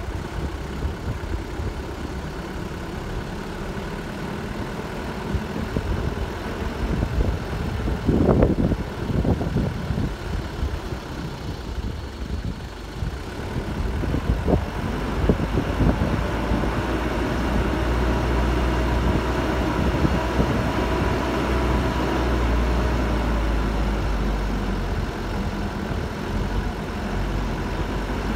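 Vehicle driving slowly on a dirt track: a steady engine and road rumble, with a few louder jolts about a third of the way in and near the middle. The rumble deepens and grows stronger in the second half.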